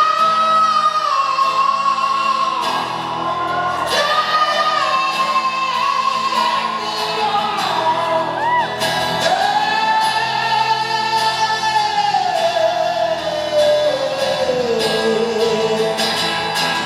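Live rock song: a male singer holds long, high sung notes that slide between pitches over steady accompaniment, heard in a large hall.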